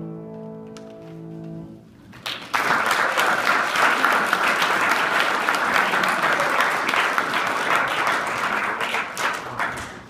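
A held piano chord rings out and fades, then applause breaks out about two seconds in and goes on, many hands clapping, until near the end.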